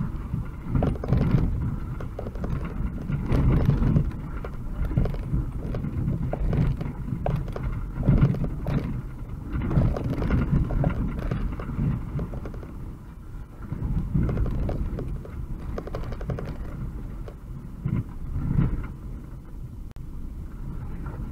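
UAZ-2206 van driving over a rough dirt track, heard from inside the cab: a low engine and drivetrain rumble with irregular knocks and rattles as the body bounces over the ruts.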